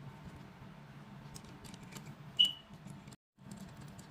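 Faint clicks of small parts being handled, with one short, sharp high squeak about two and a half seconds in; the sound cuts out completely for a moment just after.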